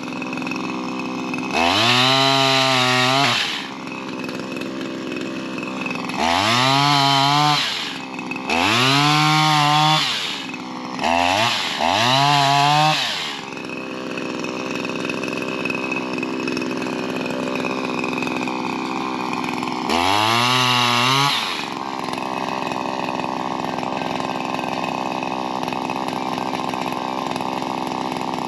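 Shindaiwa M230 multi-tool's small two-stroke engine driving a pole-saw attachment on tree limbs. It is throttled up in about six short bursts of a second or two, the pitch rising each time, and drops back to a steady idle between them and for the last several seconds.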